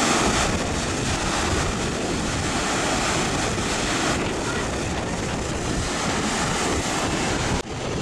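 Storm surf: heavy waves breaking and washing up the beach in a steady rush of noise, with wind buffeting the microphone. The sound cuts out for an instant near the end.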